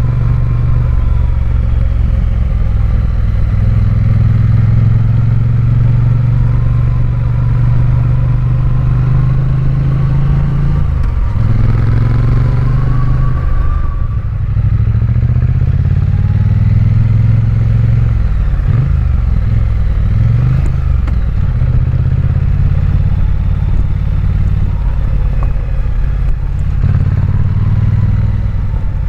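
Triumph Bonneville parallel-twin motorcycle engine running under way, its revs dropping and climbing again a few times in the middle.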